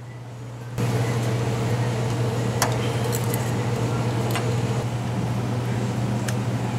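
A steady low machine hum, like a fan or motor running, starts suddenly about a second in. A few light metallic clicks and taps from metal car parts being handled sound over it.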